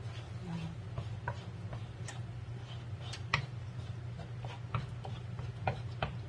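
Butter melting in a nonstick wok, crackling with irregular small sharp pops a few times a second as a wooden spoon stirs it. A low steady hum sits underneath.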